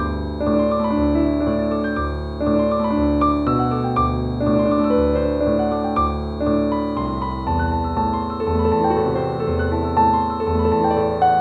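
Slow, gentle solo piano music, single notes ringing over sustained low chords, with a faint steady high tone held underneath.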